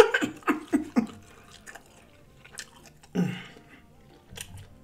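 A man's voice doing a quick run of short sung syllables, about four a second, imitating a radio station jingle, then one longer hummed note a little after three seconds in.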